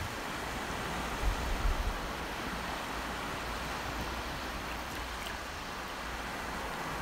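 Ocean waves washing up a sandy beach: a steady rushing hiss of surf as shallow water runs over the wet sand, with a brief low rumble about a second in.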